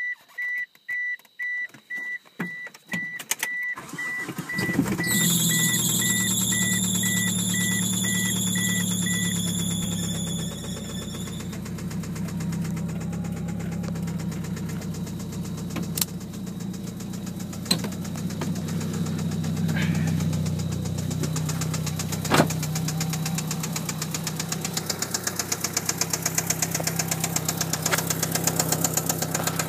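A car's high beeping chime sounds while a 1997 Mitsubishi Eclipse GST's turbocharged 2.0-litre four-cylinder is cranked and starts about four seconds in. The engine then idles with an even knocking/ticking whose cause the owner cannot tell.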